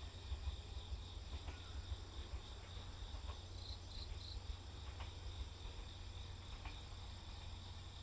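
Insects chirring steadily at a high pitch over a low rumble. Faint ticks come every second or two, and a brief three-note chirp sounds about four seconds in.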